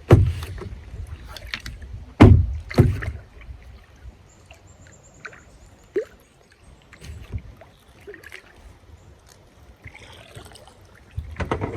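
Knocks and thumps of paddling and moving about in a kayak, with three loud bumps in the first three seconds. These are followed by scattered quieter knocks, a brief row of fast faint ticks and one sharp click.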